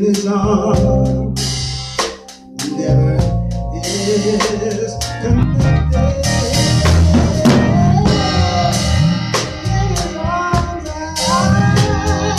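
Church band playing music with a full drum kit: kick drum, snare and rimshots over sustained instruments.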